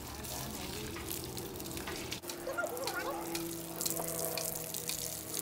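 Water spraying from a garden hose, splashing steadily onto potted plants, soil and wet concrete.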